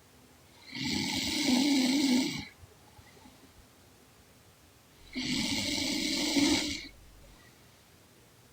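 A young woman snoring in her sleep: two long snores about four and a half seconds apart, each lasting nearly two seconds.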